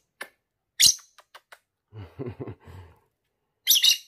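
Rosy-faced lovebird giving two short, shrill chirps, one about a second in and one near the end, with a man's low murmuring between them.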